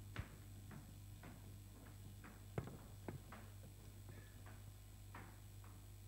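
Faint, irregular knocks and clicks of people moving about on a stage, footsteps and handling at a podium, over a steady low electrical hum from the sound system. Two louder knocks stand out, one just after the start and one about two and a half seconds in.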